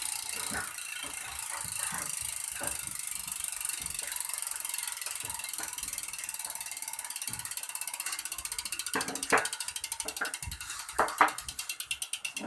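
Sagmit V12 bicycle rear hub's freehub ratcheting as the wheel freewheels: a fast buzz of pawl clicks that slows into separate ticks over the last few seconds. A few louder knocks come near the end.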